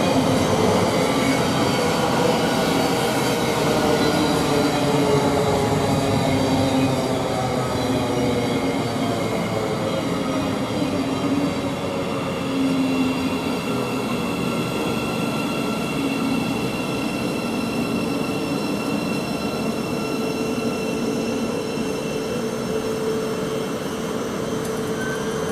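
Thameslink Class 700 electric multiple unit drawing into the platform: its motors whine down in pitch as it brakes to a stop, then it stands with a steady electrical hum.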